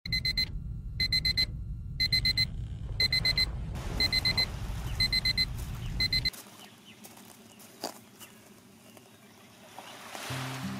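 Electronic alarm beeping: short clusters of quick, high beeps repeating about once a second, stopping about six seconds in. A low rumble underneath stops at the same moment.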